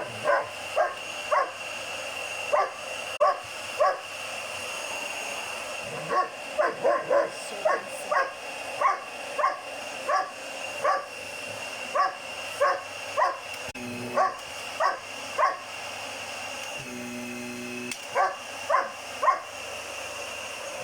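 German Shepherd puppy barking over and over at a running vacuum cleaner, a bark or two a second. The vacuum hums underneath with a steady high whine. The barking stops for a few seconds midway, then starts again.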